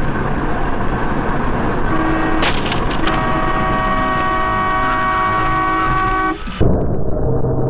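Car horn held for about three seconds over road noise inside a moving car, cutting off abruptly, followed by a sudden knock near the end.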